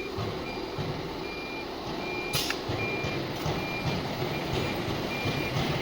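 CNC router running its automatic tool-length calibration cycle: a short high beep repeats about every three-quarters of a second over the steady running noise of the machine. There is one sharp click about two and a half seconds in.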